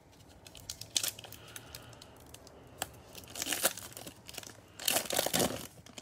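A foil Panini Prizm football card pack being torn open and crinkled by hand, with scattered sharp crackles; the loudest tearing comes twice, about three and a half and five seconds in.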